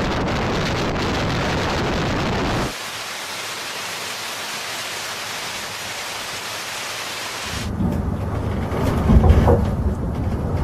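Storm noise with abrupt changes. A loud, dense roar of wind and sea cuts about three seconds in to a steadier, thinner rain hiss. Near the end a low rumble swells up and peaks about nine seconds in.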